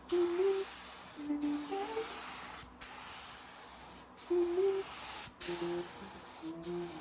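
Spray gun hissing steadily while spraying clear coat, the hiss breaking off briefly about every second and a half, with music of short melodic notes playing over it.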